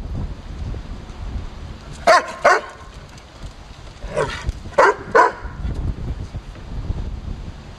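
Bouvier des Flandres barking in play: five short, sharp barks, a pair about two seconds in and then three more between about four and five seconds.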